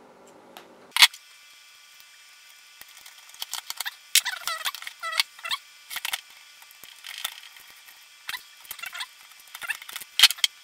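A low hum stops with a sharp click about a second in. Then comes fast-forwarded workshop audio: rapid, pitched-up chirping and clicking from hands handling RC truck suspension links and tools, sped up so it chatters like a chipmunk.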